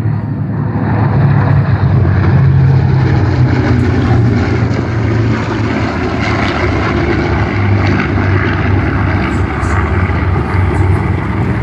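A formation of World War II piston-engine warbirds, a twin-engine bomber among single-engine fighters, flying past with a loud, steady propeller drone.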